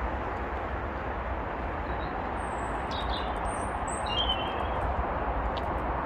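A few short, high bird chirps near the middle, over a steady outdoor background noise with a low rumble.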